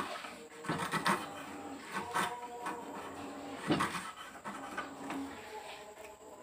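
Hand chisel paring wood, scraping across the grain and splitting off chips with a few sharp cracks, as the notch of a T joint is cut out. A faint hum comes and goes in the background.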